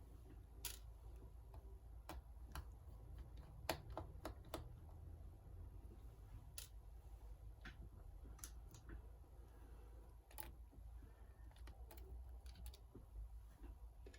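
Faint, irregular clicks and taps of small hand tools working on a smashed iPad: about a dozen scattered sharp ticks over a low room hum, the loudest about four seconds in.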